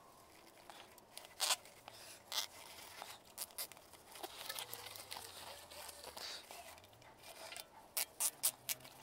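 A plastic cable tie being threaded and worked around a rubber balloon, giving sharp plastic clicks with rubber rustling in between. Near the end comes a quick run of four clicks as the tie is pulled around.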